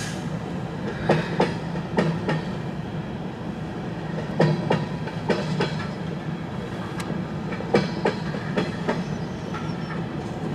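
Freight cars of a CN freight train rolling past, their wheels clacking in quick pairs over the rail joints above a steady low rumble.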